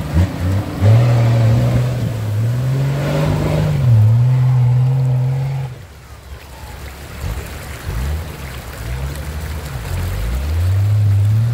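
Off-road 4x4 engine revving, its pitch rising and falling under load, dropping away about six seconds in and building again near the end.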